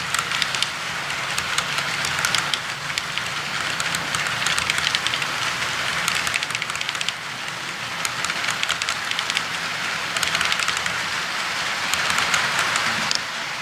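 Model train locomotive running along its track: a steady rushing hiss with rapid, irregular clicking of the wheels over the rails.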